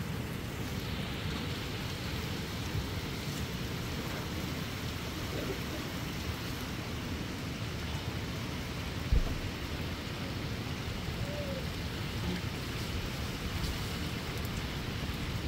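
Steady outdoor weather noise: a low rumble of wind on the microphone with a faint hiss above it. A single dull thump stands out about nine seconds in.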